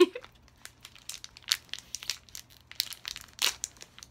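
Plastic candy wrapper crinkling as it is handled and torn open around a marshmallow: irregular sharp crackles, loudest right at the start and again about three and a half seconds in.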